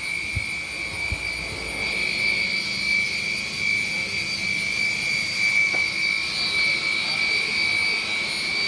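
A steady high-pitched mechanical whine from running machinery, over a background hiss.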